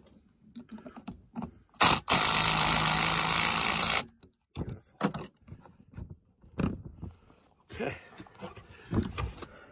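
A cordless power driver runs for about two seconds, tightening the bolt of the mounting band on an ECM blower motor. Light clicks and knocks of tools and metal parts being handled come before and after it.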